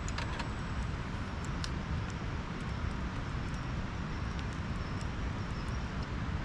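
A steady low rumble and hiss of outdoor background noise, with a few light clicks near the start as chopsticks pick food from a small metal pan.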